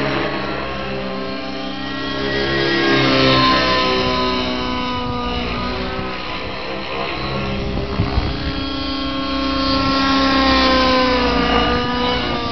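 Align T-Rex 700 radio-controlled helicopter flying overhead, its rotor and drivetrain whine rising and falling in pitch as it manoeuvres and passes, loudest about three seconds in and again about ten seconds in. There are a few short bumps on the microphone about eight seconds in.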